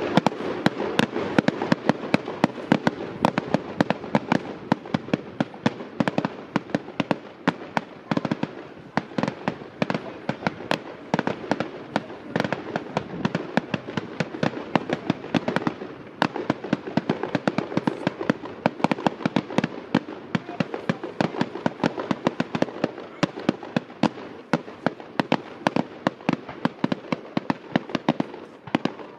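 Fireworks display going off in a dense, continuous barrage of bangs and crackles, several a second, with brief lulls around a third and halfway through.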